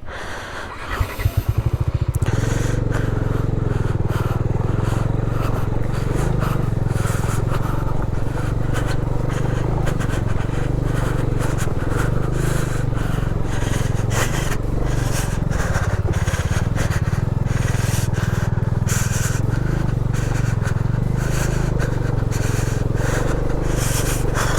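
Motorcycle engine running steadily under load, climbing a rough off-road track, with frequent short knocks over it. The engine steadies and grows louder about two seconds in.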